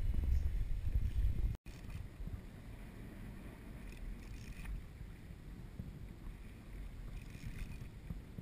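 Low rumble of wind on the microphone and water around a kayak at sea, loud at first. It cuts out suddenly about a second and a half in, then carries on much quieter.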